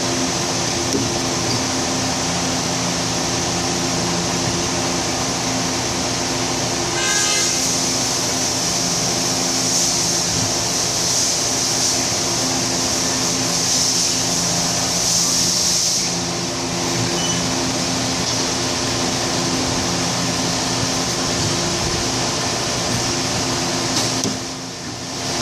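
Steady in-cabin running noise of a 2012 Honda Civic Si being driven: a constant low engine hum with road and tyre hiss over it, rising briefly about seven seconds in and dipping for a moment near the end.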